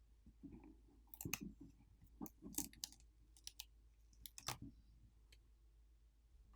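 Faint scattered clicks and light taps, the handling noise of a small plastic hardware wallet being picked up and turned over on a desk.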